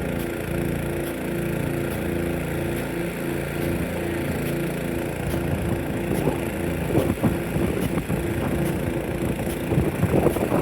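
Big-gun sprinkler running over a steady, pulsing engine drone, with faint regular ticks throughout. Wind starts buffeting the microphone about six seconds in.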